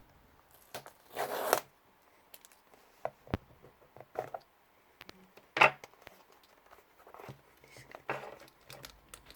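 Packing tape being torn and pulled off a mailed package, in three short ripping bursts, the loudest about a second in, with small clicks and rustles between.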